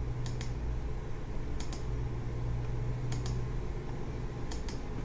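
Computer mouse button clicked four times, about every second and a half, each click a quick press-and-release pair. A steady low hum runs underneath.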